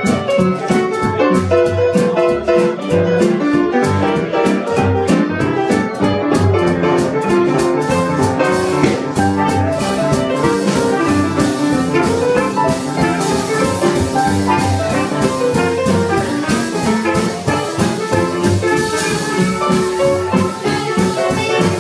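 Small traditional New Orleans jazz band playing a swing tune, with upright bass and a drum kit keeping a steady beat. Trumpet and clarinet come in partway through, and the cymbals get brighter about halfway.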